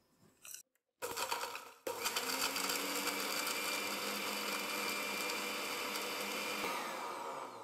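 Electric mixer-grinder running with a small dry-grinding jar, grinding whole cumin, coriander seeds, cardamom, cloves and cinnamon into powder. It starts about two seconds in, after a brief rattle, runs with a steady whir and winds down near the end.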